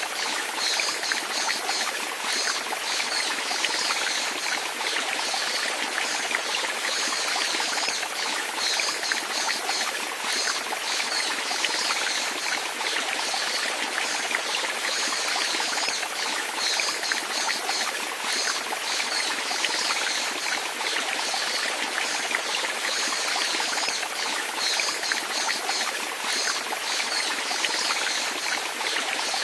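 Flowing water of a small stream, with a steady rush and many small trickling splashes.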